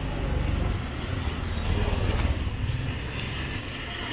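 Road traffic on a wet city street: a motor vehicle's low engine rumble, loudest about two seconds in, over a steady hiss of rain and wet tyres.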